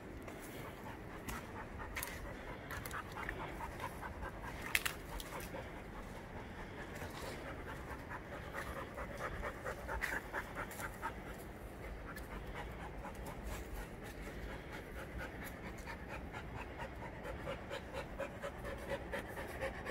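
A dog panting fast and steadily close to the microphone, with one sharp click about five seconds in.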